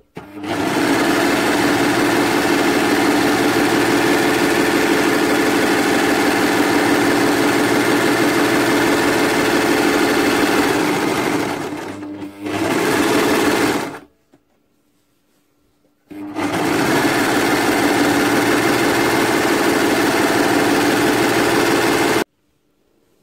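Overlocker running at speed, stitching and trimming the edge of a fabric strip with a steady, even hum. It slows and stops briefly about 11 seconds in, runs again for a couple of seconds, pauses for about two seconds, then runs again and stops abruptly near the end.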